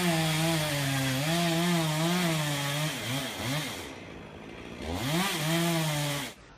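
Chainsaw running at high revs with a wavering pitch. The revs fall away about three seconds in and climb back about five seconds in, then the sound cuts off abruptly near the end.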